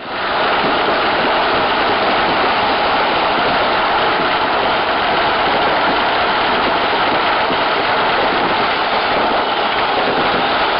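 Dense, continuous crackling of many firecrackers going off at once, an even rain-like sizzle with no single loud bang standing out.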